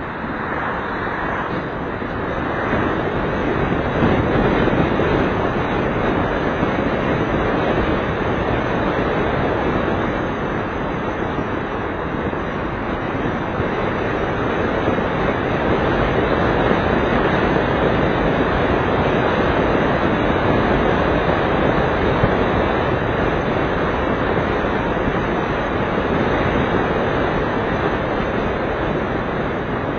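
Steady road and engine rumble inside a moving car, picked up by a dashcam's built-in microphone, swelling and easing a little as the car drives on.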